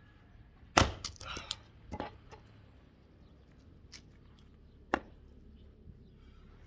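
An axe blow into a log about a second in, the loudest sound, followed by a second or so of lighter wooden knocks and clatter, then another single sharp knock about five seconds in.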